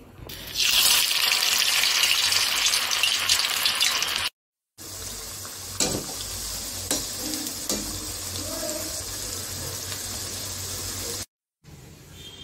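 Battered broccoli florets deep-frying in hot oil in a steel pan: a loud sizzle starts about half a second in, then after a brief break goes on as a steadier, quieter sizzle with a few light clicks from the wire strainer.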